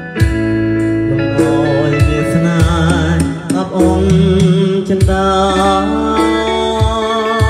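Loud music with deep sustained bass notes that change every second or so under a wavering lead melody.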